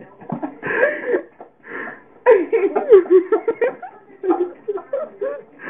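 A person laughing in several bursts, close to the microphone.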